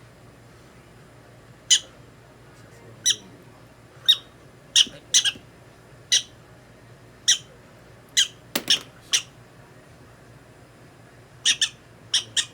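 Prairie dog giving short, sharp high-pitched squeaks, about fifteen at irregular intervals, some in quick pairs, while it is handled for treatment.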